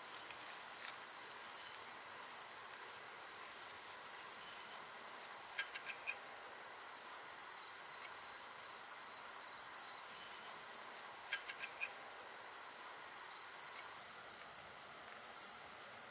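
Night chorus of crickets and other insects: a steady high trill with runs of rapid chirps. Twice, a quick series of three or four sharp clicks stands out above the insects.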